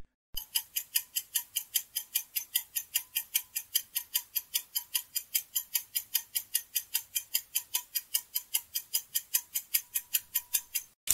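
Quiz countdown-timer sound effect: a clock ticking evenly and rapidly, about five ticks a second, through the guessing time, cut off near the end by a short sweeping transition sound.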